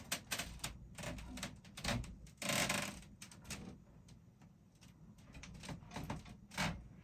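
Painting tools being handled while paint is picked up: a run of light clicks and taps, a brief scraping swish about two and a half seconds in, and another tap near the end.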